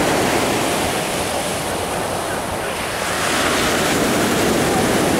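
Black Sea surf breaking on a pebble beach: a continuous rushing wash of waves that eases a little about two seconds in and swells again from about three seconds.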